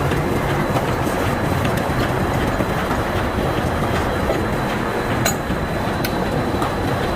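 Loud, steady machinery noise in a forge shop, with a few sharp metallic clicks in the second half.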